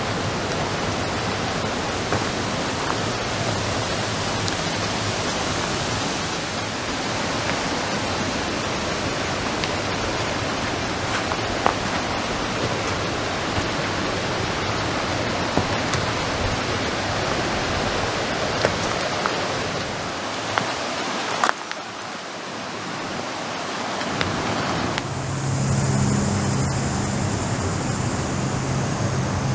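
Steady rush of river rapids, an even roar of whitewater, with a few sharp clicks. About 25 seconds in, a low steady hum with a high whine joins it.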